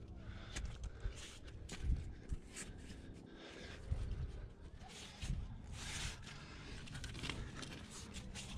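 A rock climber's heavy breathing, several hard breaths each about half a second long, with short scrapes and clicks of hands and gear against a sandstone crack and low bumps of movement on the camera.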